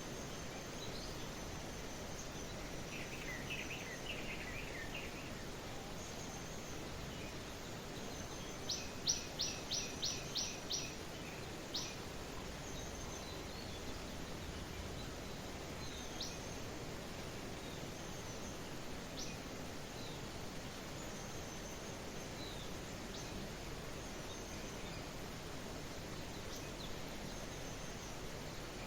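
Wild songbirds chirping over a steady background hiss. A short jumble of chirps comes a few seconds in, then a quick run of about seven sharp chirps around nine seconds in, with scattered faint, high calls the rest of the time.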